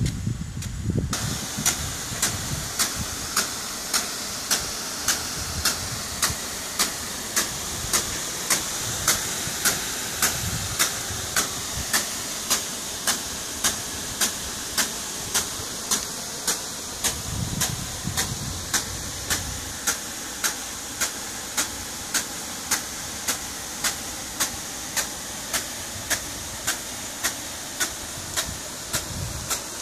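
Hose-reel irrigator's sprinkler gun spraying water over an onion field: a steady hiss of the jet with a sharp, even ticking about twice a second, starting about a second in.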